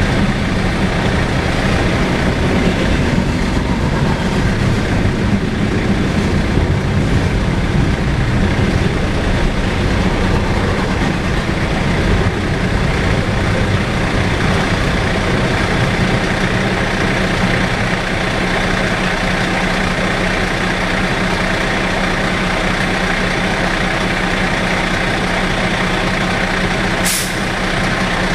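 Freight train cars rolling steadily past on the main line, mixed with the steady low hum of a heavy truck's engine running close by. A brief sharp sound cuts through near the end.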